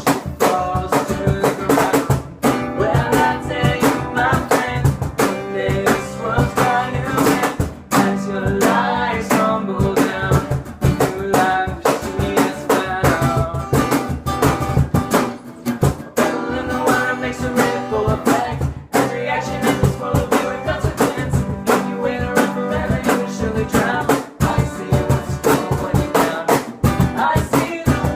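A rock band playing a song: guitar and a drum kit, with singing.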